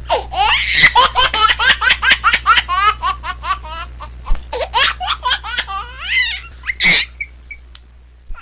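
A baby laughing: a fast run of giggles, about five a second, for the first few seconds, then looser, sparser laughs, one loud high squeal about seven seconds in, and a fade.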